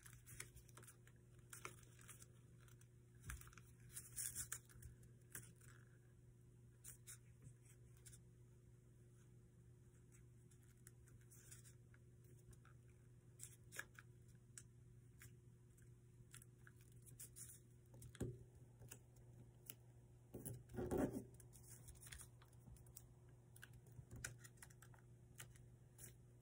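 Faint crinkling, rustling and small clicks of a sheet of paper being worked and creased by hand into an origami fold, over a low steady hum. The paper sounds are louder about four seconds in and twice more in the last third.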